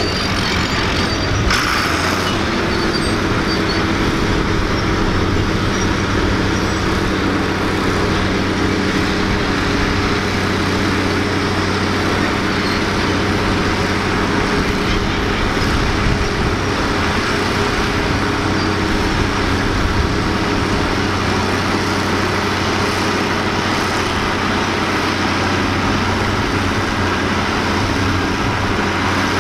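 Allis-Chalmers D-21 Series II's six-cylinder diesel engine running steadily under heavy load as the tractor drags a weight-transfer sled.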